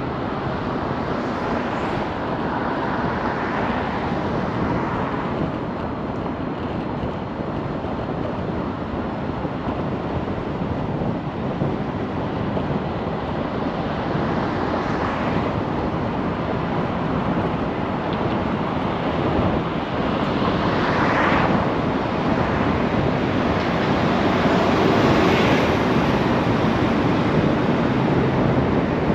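Steady road and wind noise from a car driving on city streets, swelling a few times as it goes.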